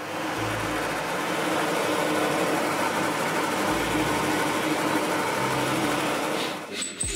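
Drill press running with a dust-extraction vacuum at the bit: a steady machine hum under a hiss of suction, cutting off near the end.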